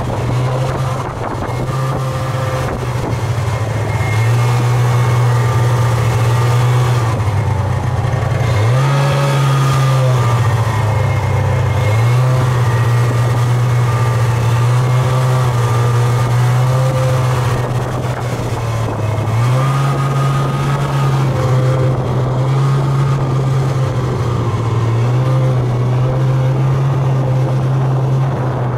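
Snowmobile engine running steadily during a ride, its pitch rising and falling several times as the throttle is opened and eased off.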